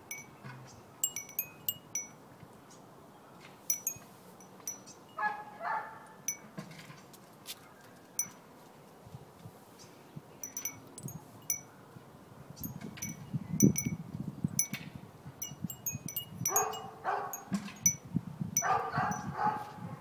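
Wind chime of metal tubes, seashell crescent moons and a glass ball tinkling in the breeze. It gives scattered light, high-pitched strikes that ring briefly, denser and louder in the second half.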